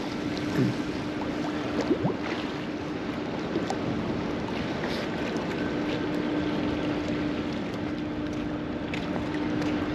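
Lake waves washing and splashing against a concrete pier wall, with wind on the microphone and a steady low hum running beneath.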